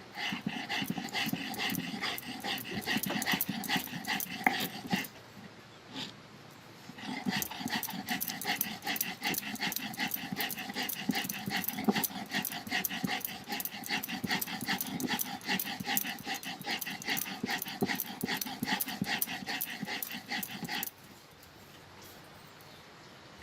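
Stone roller of a sil-batta being worked over the flat grinding stone, a continuous gritty rasping. It runs for about five seconds, pauses briefly, then goes on steadily and stops abruptly near the end.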